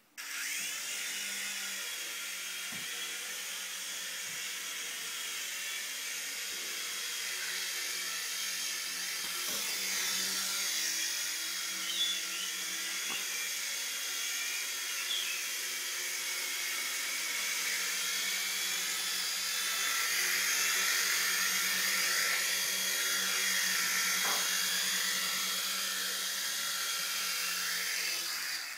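Small electric motors and twin rotors of a toy RC Chinook helicopter running in a steady, really loud high whine, the pitch sweeping up and down with the throttle. It starts abruptly and cuts off at the end.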